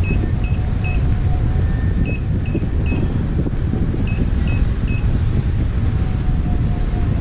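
Steady wind rush and road rumble on the camera microphone from riding an electric unicycle. Over it, a high electronic beeper sounds three quick beeps, three times at about two-second intervals, then stops about five seconds in.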